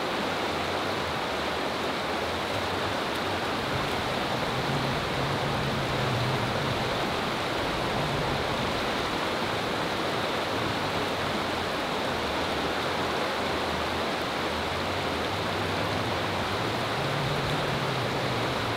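Fast creek water rushing steadily over rocky riffles, a continuous even hiss of white water.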